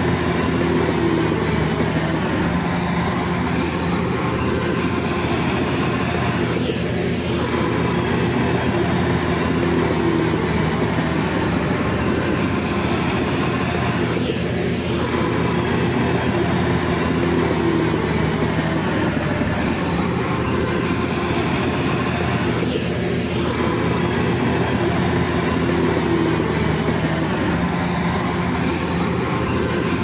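Heavy diesel engine of a crawler bulldozer running steadily under load. Its note swells and eases in a cycle that repeats about every eight seconds.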